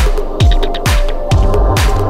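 Electronic background music with a steady kick drum, about two beats a second, and a snare-like hit about once a second.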